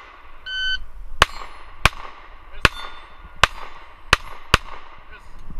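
Shot-timer start beep, then six 9mm pistol shots from a Springfield XD Subcompact fired at steel targets, spaced roughly two thirds of a second apart, the last two closer together: a timed run of a steel challenge stage.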